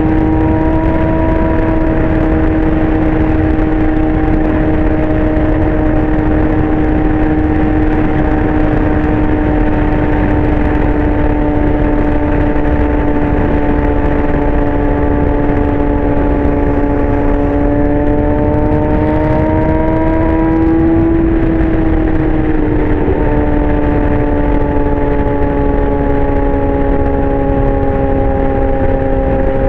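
Yamaha R6's 599 cc inline-four through a Leo Vince aftermarket exhaust, running loud and steady at a high, even pitch. About two-thirds of the way through, the pitch rises briefly, then settles a little lower and holds there.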